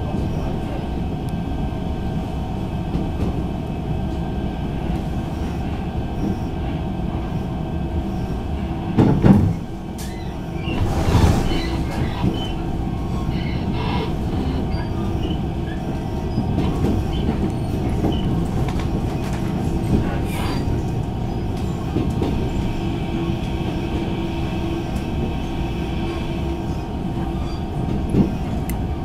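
Inside a Taiwan Railways EMU600 electric multiple unit running along the line: a steady rumble with a constant hum, and a few knocks from the wheels, loudest about nine and eleven seconds in, as the train crosses the pointwork of the tracks.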